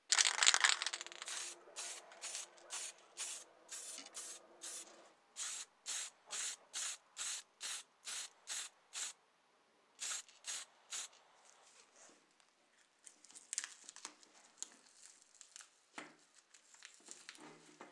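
Black paint sprayed onto a taped-up plastic model car body: one long hiss, then a quick run of short spray bursts, about two or three a second, which stop about eleven seconds in. Near the end comes the soft rustle and tearing of masking tape being peeled off the painted part.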